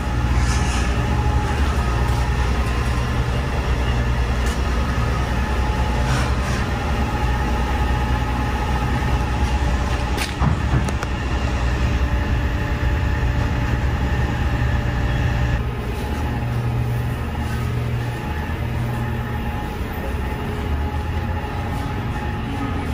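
Steady low rumble and hum of a large machine shop with machinery or ventilation running, with a few faint clanks now and then.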